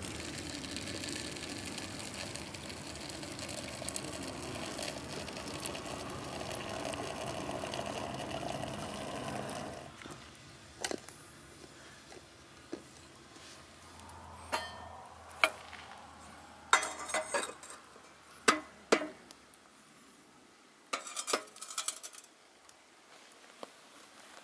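Hot water pouring steadily from a samovar tap into a glass teapot, stopping about ten seconds in. Then a scattered series of sharp glass and metal clinks as the teapot is handled and set on top of the samovar.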